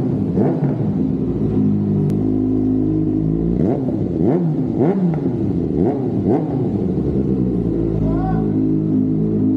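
Kawasaki ZX-6R inline-four engine running with its exhaust, revved up and back down several times in quick succession near the middle, settling back to a steady run between blips.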